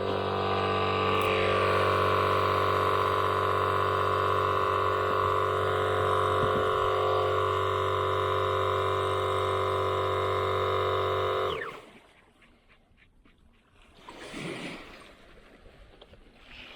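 A steady, loud drone of several held tones, stopping abruptly about eleven seconds in. Afterward there are only faint, brief swells of noise.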